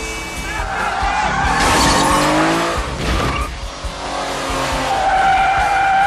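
Cars in a street chase: engines revving up and tyres squealing as an Audi S8 sedan slides through a corner, with a long tyre squeal near the end.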